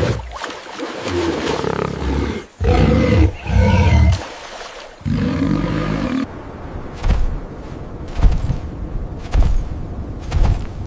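A large wild animal roaring and growling in several rough, deep calls. About six seconds in, the calls give way to a series of thumps, roughly one a second.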